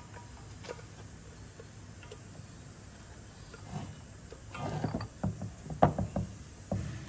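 Metal parts of a truck air disc brake caliper's adjuster mechanism clicking and knocking as they are fitted by hand: a few faint ticks at first, then a quick run of clicks over the last couple of seconds, with one louder knock near the end.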